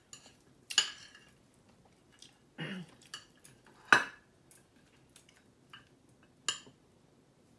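Eating utensils clinking and scraping against a bowl in a series of separate sharp clicks, the loudest about four seconds in.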